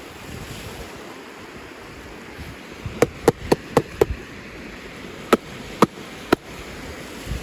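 Sharp clicks or taps of hard objects: five in quick succession about three seconds in, then three more spaced about half a second apart, over a steady hiss.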